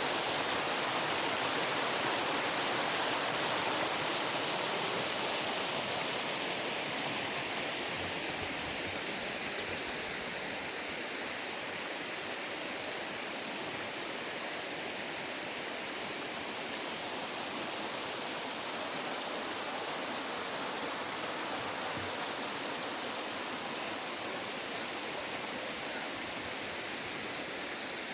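Waterfall: falling water rushing in a steady roar of noise, slightly louder in the first few seconds.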